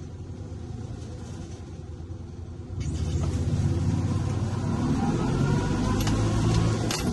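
Classic Fiat 500's air-cooled two-cylinder engine heard from inside the cabin: a low rumble at first, then louder about three seconds in as the car pulls away.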